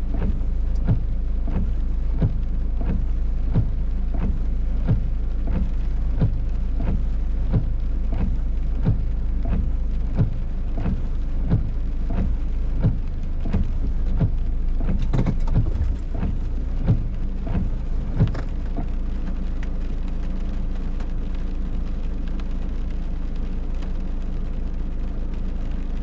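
Heavy rain drumming on a car's roof and windshield, heard from inside the cabin: many sharp drops over a low steady rumble. The drops thin out after about 18 seconds.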